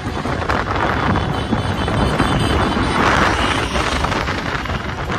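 Steady wind rush on the microphone of a moving motorcycle, mixed with its engine and road noise.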